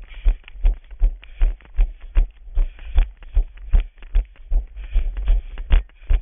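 A runner's footfalls thudding through a body-worn camera in a steady running rhythm, about three deep thumps a second, each with a brief scuff.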